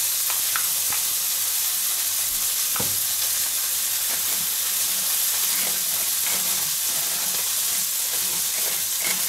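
A minced-meat patty sizzling steadily as it fries in a pan, with a few faint scrapes of a knife spreading butter on a toasted muffin half.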